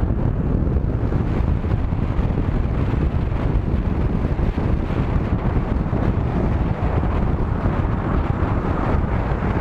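Wind buffeting the microphone of a camera riding on a moving vehicle at highway speed, over a steady low road rumble.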